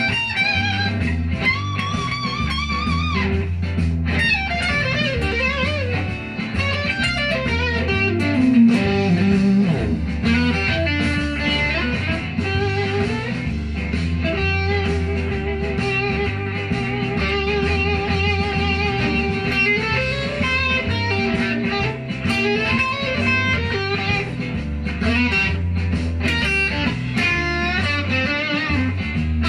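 Les Paul-style electric guitar playing a blues lead in G over a backing track with a steady bass line. It plays bent notes with vibrato, a descending run about four to nine seconds in, and a long held note in the middle.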